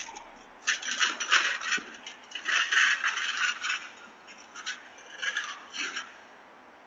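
Irregular bursts of scraping and rustling noise, heaviest in the first half, then a few shorter scrapes.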